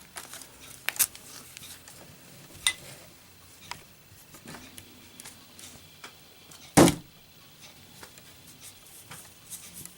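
A lit Zippo lighter with a steel insert, dropped in a drop test: one sharp knock as it lands, a little past the middle, among a few faint clicks and taps.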